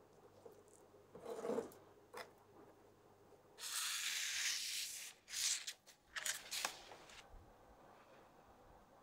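Clear plastic film crinkling and rustling as hands handle it, in a long burst of over a second and then two shorter ones, after a fainter rub about a second and a half in.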